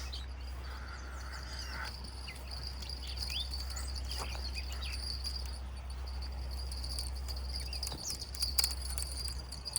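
Outdoor insect chorus: a steady high-pitched insect trill, with scattered short bird chirps and a steady low rumble underneath.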